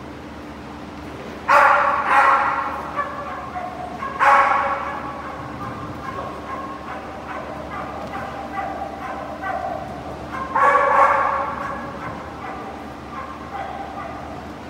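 A dog barking in loud bursts, about a second and a half in, around four seconds in and again near eleven seconds, echoing in a large bare hall, with softer dog sounds in between.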